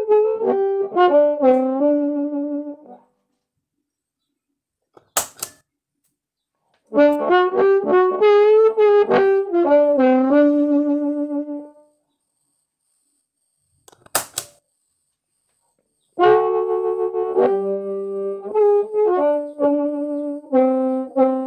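Harmonica in G played through the HarpMojo harmonica EQ pedal, in three short phrases with pauses between them. The middle phrase has the pedal switched on with its Bite control boosted. In each pause there is a sharp click, the pedal's footswitch being stomped on and then off.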